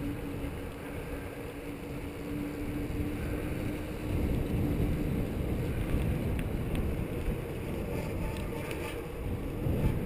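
Wind buffeting the microphone and low rumble from a mountain bike rolling along a paved road, with a faint steady hum for the first few seconds; the rumble grows louder about four seconds in.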